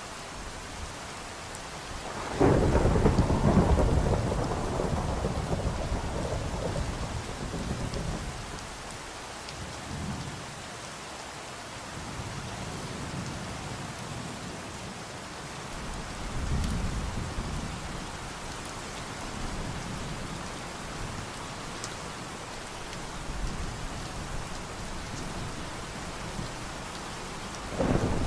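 Steady rain falling, with a loud rumble of thunder breaking about two seconds in and rolling away over several seconds. Fainter rumbles follow, and another thunderclap breaks at the very end.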